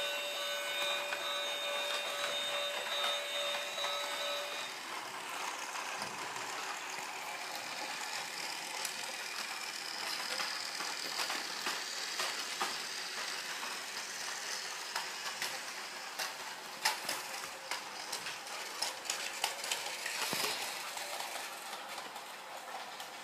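A train running on its rails, with rattling and clicking of wheels over the track. A steady multi-note tone sounds for the first four or five seconds, then stops.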